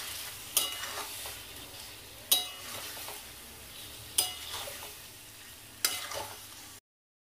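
Marinated chicken sizzling in oil in an aluminium kadai while a steel spatula stirs it, the spatula clanking against the pan four times, once every second and a half or so. The sound stops abruptly near the end.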